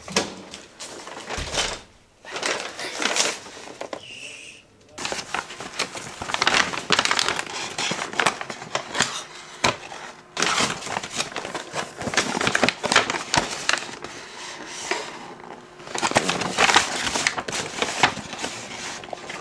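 Kraft-paper delivery bag rustling and crinkling while cardboard takeaway boxes are pulled out and opened, in irregular bursts with short pauses.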